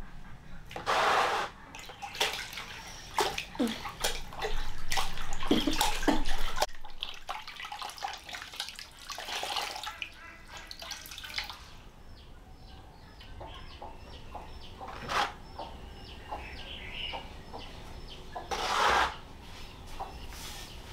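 Water splashing and pouring in irregular bursts, from washing a person by hand with water.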